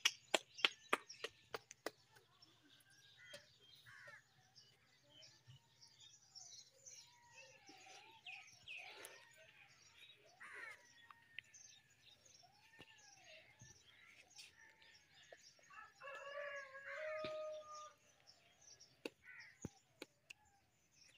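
Chickens clucking faintly with short rising-and-falling calls, and a rooster crowing once, about two-thirds of the way through. In the first two seconds a quick run of sharp taps fades away.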